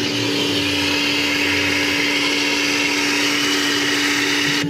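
Power washer running, its pump humming steadily under a hissing jet of soapy water sprayed into the holes of a steel vehicle frame; it cuts off suddenly at the end as the spray stops.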